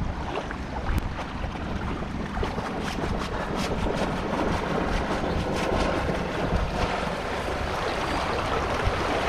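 Shallow river water rushing steadily over a riffle, with wind on the microphone and a few faint scattered ticks.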